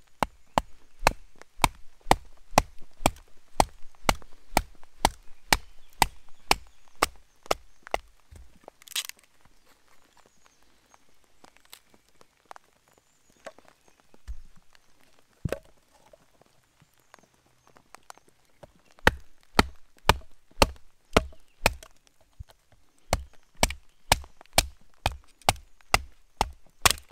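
A wooden baton knocking a knife blade down through an upright log to split it (batoning), in quick steady strikes about three a second. There is a louder crack about nine seconds in, then a pause with only a few single knocks, and the fast strikes start again near the end.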